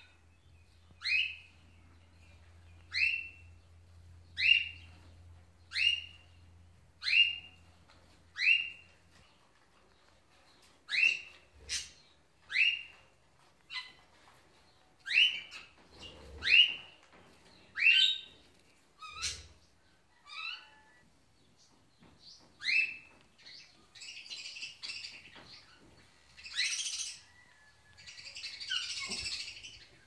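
A pet parrot repeating short, sharp rising chirps, about one every second and a half. Near the end they turn into harsher, raspy squawking sounds.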